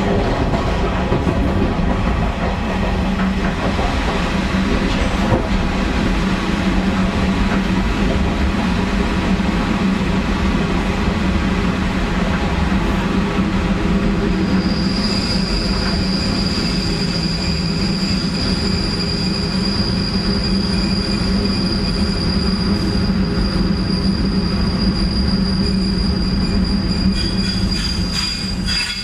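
Taiwan Railways diesel-hauled ordinary train with blue carriages running, a steady low hum under the rumble of the wheels. About halfway through a high steady squeal from the wheels on the rails sets in and holds until near the end, when it stops.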